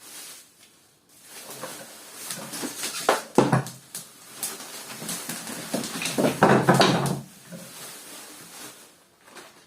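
Parts of a wooden balance bike being taken out of their box and handled: rustling with a few sharp knocks as pieces are moved and set down.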